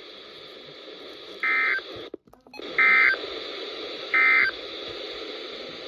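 Three short bursts of Emergency Alert System SAME data tones, the end-of-message code that closes a flash flood warning. Each burst is a fraction of a second long, and they come about a second and a half apart over steady radio hiss, with a brief dropout between the first and second.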